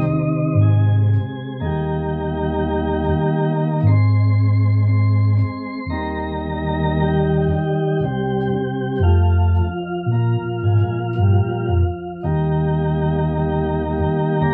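Tokai two-manual electronic organ playing a hymn in slow held chords, the notes wavering with vibrato over deep bass notes that change with each chord.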